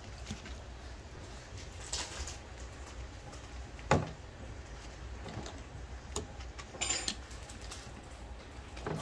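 A litter of five-week-old American Bully puppies moving and playing, with faint whimpers and scattered bumps and knocks. There is one sharp knock about four seconds in.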